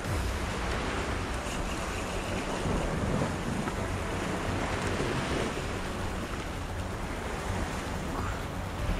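Sea surf washing against a rocky shore, with wind on the microphone.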